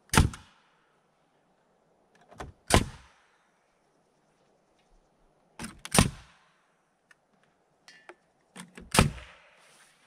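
Pneumatic framing nailer firing four nails through plywood sheathing into timber framing, one sharp shot about every three seconds. A faint click comes just before most of the shots.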